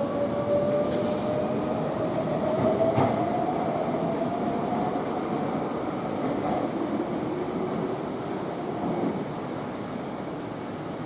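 Electric commuter train pulling out of the station: its motor whine rises steadily in pitch as it gathers speed, over the rumble of wheels on rail, and it grows fainter near the end.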